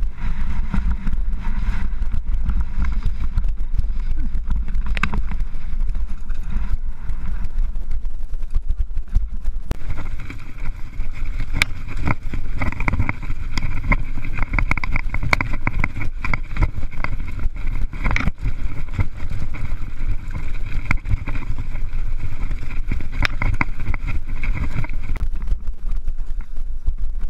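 Mountain bike riding down a rocky trail, heard through an action camera: wind rumbling on the microphone, with the tyres and bike rattling and knocking over rocks. About ten seconds in, a steady high buzz joins the rattle and runs until near the end.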